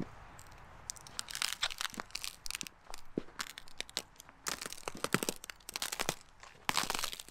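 Footsteps of leather hiking boots crunching through a thin layer of crusty snow, a crackling crunch with each step, several steps in a row.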